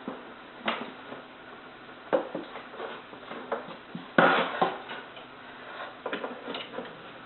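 Irregular knocks and clatters of hard plastic aquarium equipment being handled in the sump, about five separate bumps with the loudest a little past the middle.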